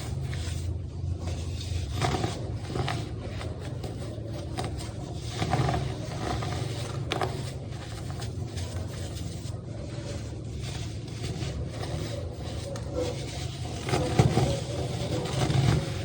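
Baking soda being crunched and crumbled, a continuous stream of dry, crisp crunches and crackles over a steady low rumble.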